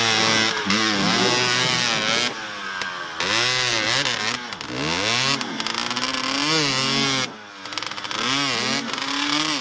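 Dirt bike engine revved hard again and again, its pitch rising and falling with each blip of the throttle as the rear wheel spins and churns through deep mud. The sound briefly drops away about seven seconds in.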